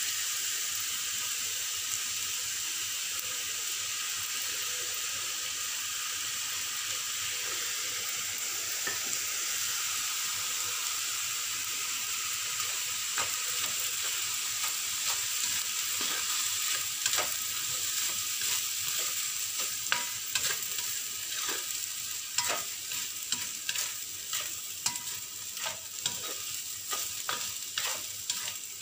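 Fried rice sizzling in a stainless steel wok, with a steady hiss. From about halfway through, a spatula scrapes and knocks against the pan in quick, irregular strokes as the rice is stir-fried.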